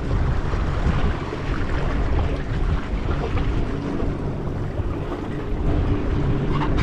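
Wind buffeting the microphone over waves washing against the jetty rocks, with a boat motor humming steadily underneath.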